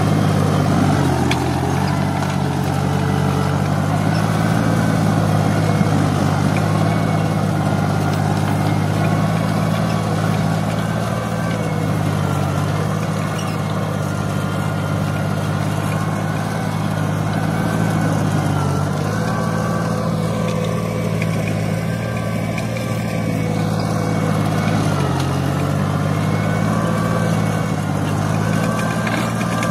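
Turbocharged Fiat 480 tractor's diesel engine running steadily under heavy load, pulling a three-bottom moldboard plough through hard, dry ground. The engine pitch sags briefly about four times as the plough bites harder, then recovers.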